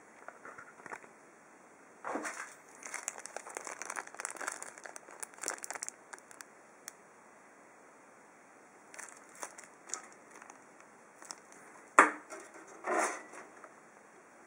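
Hard plastic parts of a 120mm case fan and PC case being handled and fitted: irregular crinkling, rustling and small clicks in bursts, with one sharp loud click about twelve seconds in.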